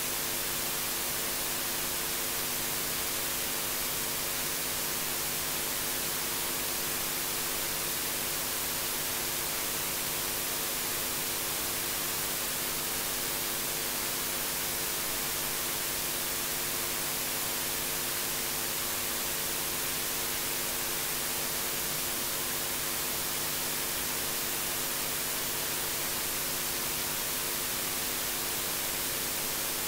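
Steady electronic hiss of audio-line or recording noise, with a faint steady hum of several low tones beneath it; it does not change and nothing else happens.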